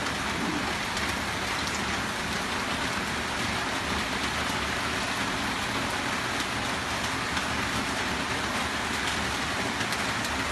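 Steady, dense hiss of water, even throughout, with faint scattered ticks.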